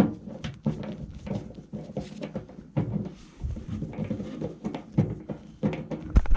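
Irregular metal knocks and clanks, several a second, as tools and parts are worked on a furnace blower assembly to free the wheel hub from its rusty shaft. A heavier thump comes just before the end.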